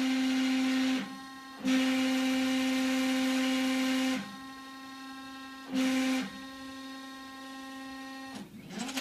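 Stepper motors of a home-built CNC plasma/router table driving its axes: a steady whine at one pitch during three moves, about a second, then about two and a half seconds, then a brief one. Between the moves a quieter hum holds at the same pitch. Near the end the whine wavers and sweeps in pitch as another move begins.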